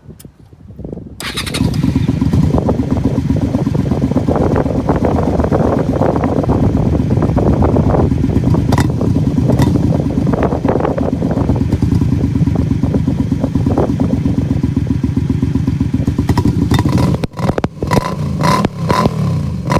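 Early Honda Magna 250's V-twin engine running through its stock muffler with the silencer removed: a loud, rapid, steady exhaust beat. It comes in about a second in; near the end the sound breaks off for a moment and comes back less steady.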